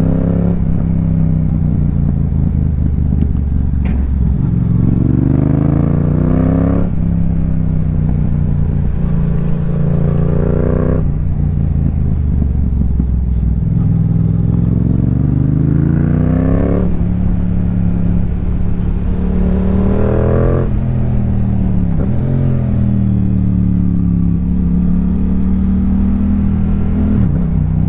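2022 Yamaha YZF-R7 parallel-twin running through a Yoshimura R77 aftermarket exhaust, ridden hard. The engine note climbs in pitch under throttle and falls away sharply, about five times over, then holds a steadier, wavering pitch near the end.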